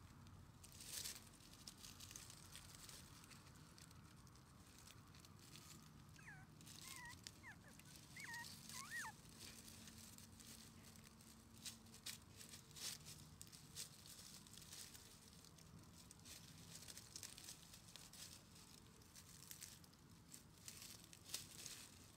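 Mostly near silence with faint rustling and patter, and a few short high squeaks from a three-week-old Shiba Inu puppy, bunched together about a third of the way in.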